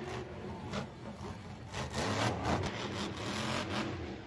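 Monster truck engine running and revving hard, its pitch rising and falling several times.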